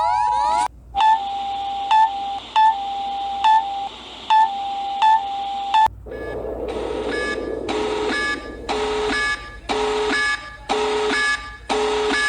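Electronic alert tones from mock Emergency Alert System alarms. A brief steady two-tone attention signal cuts off, followed by a held tone broken by short higher beeps about every second. About six seconds in, a different pattern of repeating beeps, roughly once a second over a hiss, takes over.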